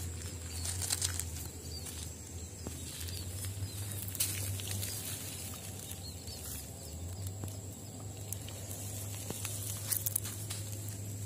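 Footsteps crunching over a pebble and gravel riverbed, with a few sharp clicks of stones knocking, over a steady low hum.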